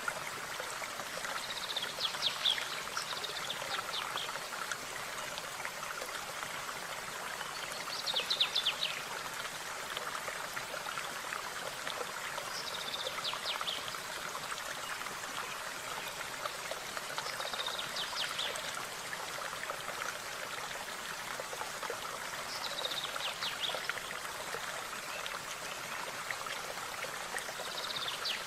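A stream running steadily, with a songbird singing a short, high, rapid phrase about every five seconds, six times in all.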